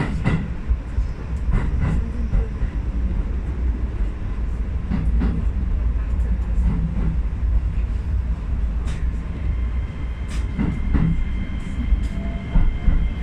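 Keisei 3050-series electric train running at speed, heard from inside its front cab: a steady low rumble, with pairs of clicks as the wheels cross rail joints. A steady high whine comes in about ten seconds in.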